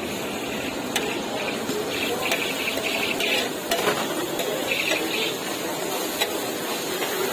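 Metal spatula scraping and stirring chopped chicken and sauce on a hot flat griddle over a steady sizzle, with a few sharp clacks of the spatula against the griddle.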